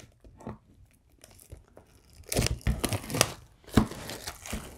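Clear plastic shrink-wrap being picked at and torn off a Blu-ray steelbook case: a few faint crinkles at first, then loud crackling and tearing from about halfway through.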